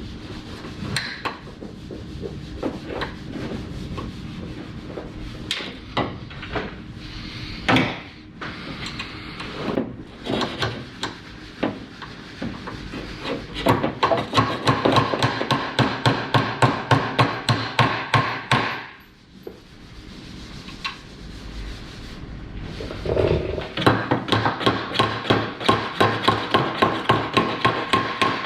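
Small ball-peen hammer driving a new door hinge pin into a car door hinge: scattered knocks and handling at first, then two long runs of steady, quick blows, about four a second, each with a metallic ring.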